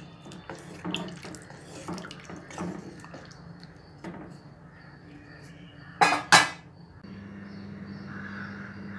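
A metal spoon stirring and scraping thick gravy in a clay pot, with light knocks against the pot. About six seconds in come two loud, sharp clatters, then a steady low hum takes over.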